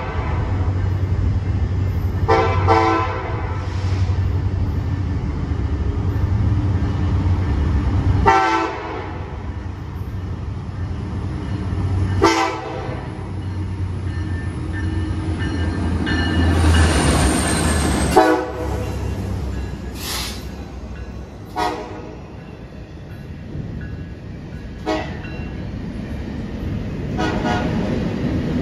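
Freight train diesel locomotives sounding their air horn in about ten separate blasts as they approach and pass, over a steady low engine rumble and the noise of the train rolling by.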